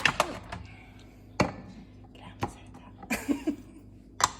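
Irregular clicks and knocks of hard kitchen items being handled and set down, about half a dozen, the sharpest at the very start and about four seconds in.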